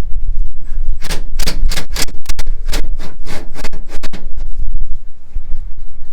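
A quick, irregular run of about a dozen sharp clicks or knocks from about a second in to just past four seconds, over a steady low rumble.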